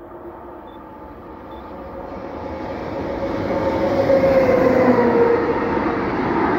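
Freight train of tank wagons hauled by an SNCF BB 26000 electric locomotive approaching and passing close by, growing steadily louder over the first four seconds. A steady whine drops slightly in pitch about five seconds in, over the noise of the wheels rolling past.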